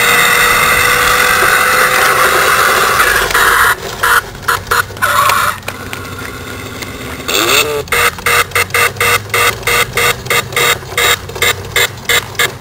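Electronic engine sound from a toy RC Toyota Celica's built-in sound module, played through its small speaker. It runs steadily at first and breaks up from about four seconds in. From about eight seconds in it cuts in and out rapidly, about three times a second.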